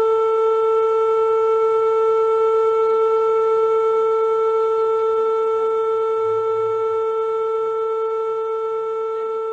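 Siren holding one steady, unwavering tone after a quick wind-up, slowly getting a little quieter.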